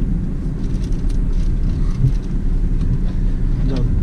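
Tata Tigor car driving, heard from inside the cabin: a steady low rumble of engine and road noise, with a few faint clicks and rattles.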